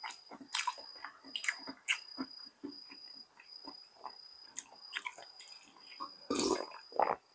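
A person chewing and eating, with many short wet smacks and clicks of the mouth and one louder, longer rush of noise about six seconds in. A faint steady high whine runs underneath.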